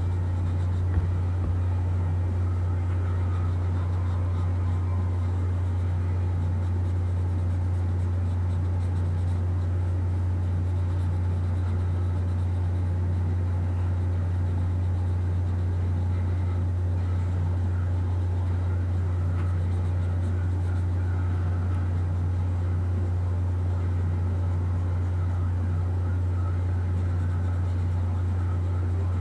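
A steady deep hum that does not change, with a faint haze of noise above it.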